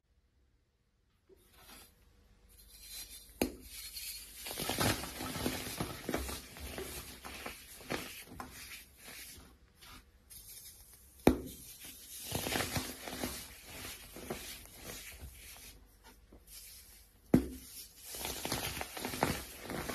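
Crumbly dried soap shapes being crushed and broken apart by hand: a steady run of crunching and crumbling as the pieces give way and powder sifts off, with three sharp cracks as chunks snap.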